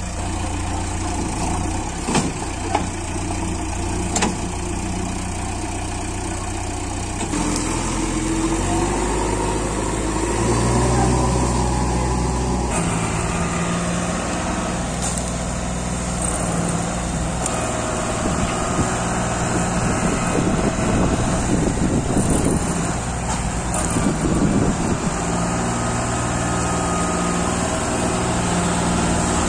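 Heavy diesel engines of a JCB backhoe loader and a combine harvester running steadily, their pitch stepping up or down a few times. A few sharp knocks come in the first few seconds.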